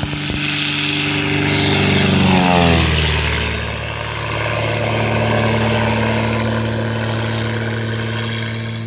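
Agricultural crop-spraying plane's propeller engine on a low pass: the note swells and drops sharply in pitch about two and a half seconds in as the plane goes by. It then drones on steadily, fading slightly near the end.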